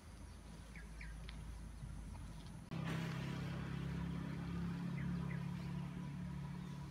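Quiet outdoor ambience with a few scattered bird chirps; about three seconds in, a steady low engine-like hum starts and carries on under the chirps.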